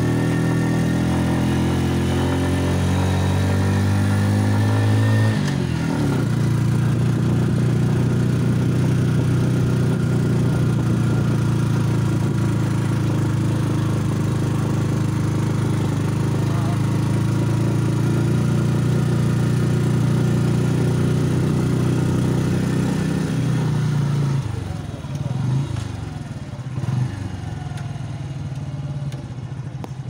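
Motorcycle engine of a tricycle heard from its sidecar, rising in pitch under acceleration, then dropping sharply with a gear change about five seconds in and running steadily. Near the end it slows and quietens as the tricycle eases off.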